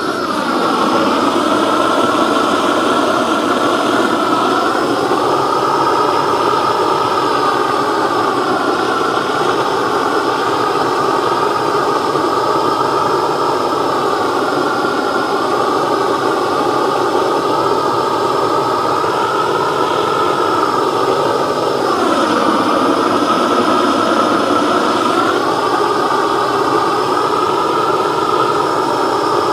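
Long-wand blowtorch burning with a steady, loud roar as its flame plays over the sanded wood of a chainsaw-carved pumpkin, scorching it to seal the wood and burn off the fuzz. The tone of the roar shifts as the torch moves and dips lower for a few seconds about three quarters through.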